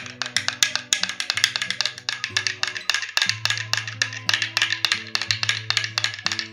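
Metal spoon stirring coffee in a glass tumbler, clinking rapidly against the glass several times a second, over background music with low sustained notes.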